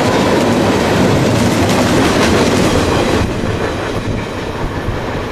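Freight cars of a passing mixed freight train rolling by, a steady noise of steel wheels on rail with some clickety-clack. It gets somewhat quieter about three seconds in.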